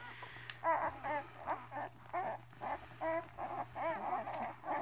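Newborn puppies crying while they nurse: a string of short, high-pitched squeaks, about two a second.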